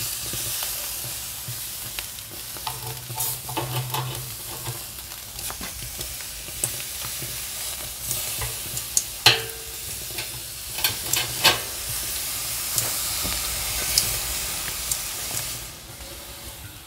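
Hot charcoal in an open Pit Barrel Cooker, hissing and crackling steadily. Several sharp metal clinks come from the skewers as the pork is hung on the rebar bars.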